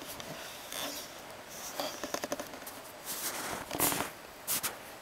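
Footsteps crunching and scraping in snow, with irregular short crackles and brushing sounds from clothing.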